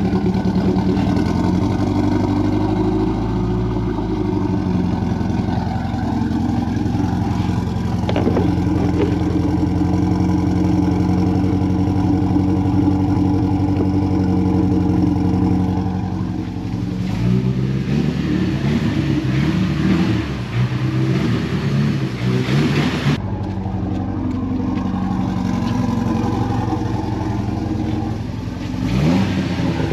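Mitsubishi Lancer Evolution X's 2.0-litre turbocharged four-cylinder running, steady at first, its note shifting and varying from a little past halfway. The engine is blown.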